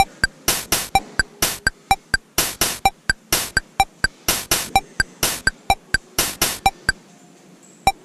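Electronic dance music with a sharp, regular drum-machine beat over a synth tone; the beat drops out for about a second near the end.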